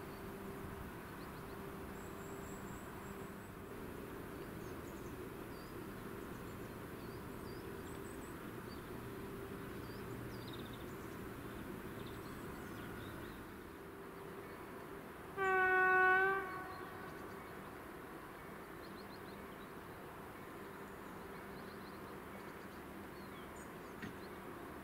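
A train horn sounds one single-tone blast about a second long, partway through, the loudest thing here. Before it a faint steady hum carries on, and birds chirp faintly.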